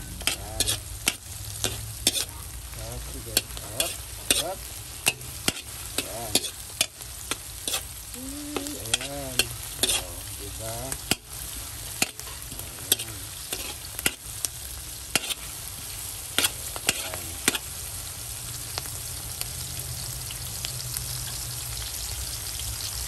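Chopped onion and garlic sizzling in hot oil in a wide metal pan while a metal spoon stirs them, clinking and scraping against the pan about once or twice a second. The spoon strikes stop after about seventeen seconds and the sizzle carries on alone, a little louder near the end.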